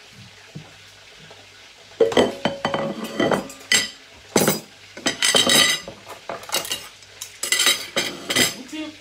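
Metal pots, pans and utensils clattering and clinking, a busy run of knocks and scrapes with a metallic ring that starts about two seconds in.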